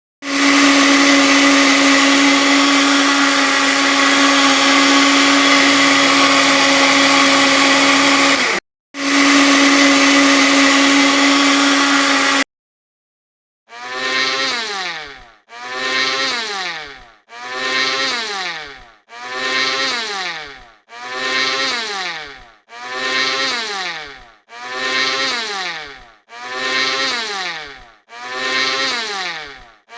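Electric blender motor running continuously with a steady hum. It cuts out for an instant, runs on, then stops. After a short pause it is run in pulses: about ten short bursts, each falling in pitch as the blades wind down.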